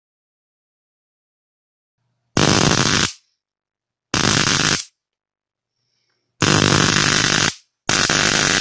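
High-voltage arc from an overvolted car ignition coil, driven from 50 Hz mains through a phase angle controller, jumping about 3 cm of air. It buzzes loudly in four abrupt bursts, each under about a second, as the supply is switched on and off.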